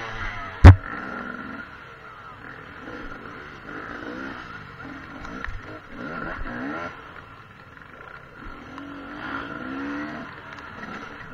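Dirt bike engine revving up and down over and over as it is worked through the course, with one loud sharp knock less than a second in.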